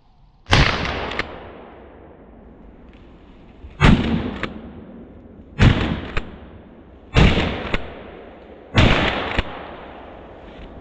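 Five shots from a Remington 870 pump-action shotgun, the first alone and the next four about a second and a half apart, each trailing off in an echo. A short clack follows about half a second after each shot as the pump is worked.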